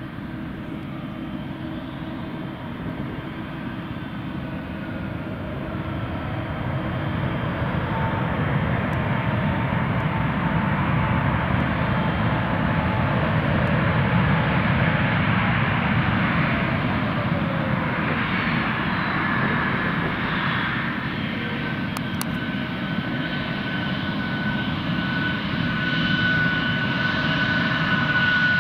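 Airbus A321-271NX's two Pratt & Whitney PW1100G geared turbofans running during the landing rollout, the jet noise building to its loudest about halfway through as the aircraft decelerates on the runway. A whine falls in pitch past the middle, and a steady high whine holds near the end.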